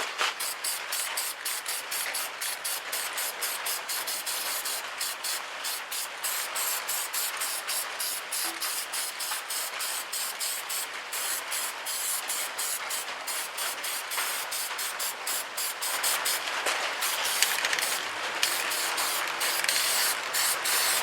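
Aerosol can of black appliance epoxy paint spraying: a hiss in many short passes with brief breaks between them.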